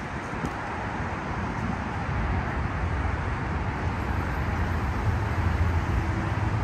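Traffic on a busy multi-lane highway: a steady rush of passing cars that grows gradually louder.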